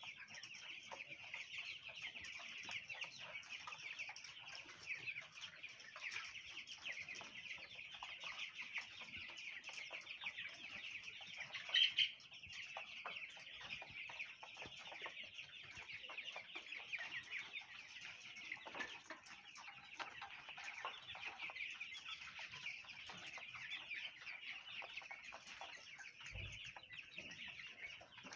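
A flock of young broiler chickens peeping continuously, many overlapping high calls, with one louder call about twelve seconds in.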